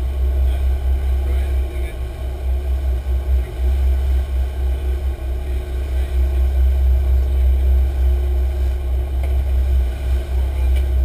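Sportfishing boat's engines running steadily at speed under way, a continuous low drone and rumble.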